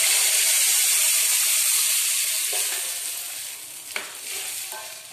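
Tamarind and chilli liquid poured into hot oil in a steel pan, sizzling loudly and dying down over the last couple of seconds as the pan cools. A single knock of the steel ladle about four seconds in as the curry is stirred.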